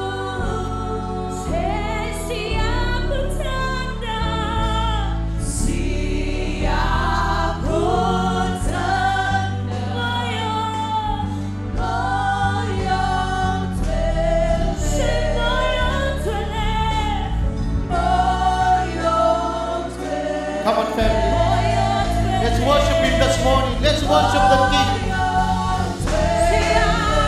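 Live gospel worship song: several women singing together into microphones, backed by a band with keyboard, bass and drums. The drums grow busier about three-quarters of the way in.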